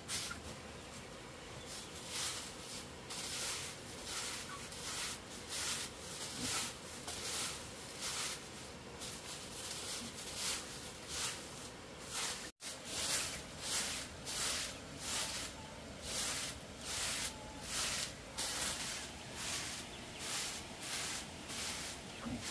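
Straw broom sweeping a dirt floor strewn with litter: a steady run of short swishes, about three every two seconds.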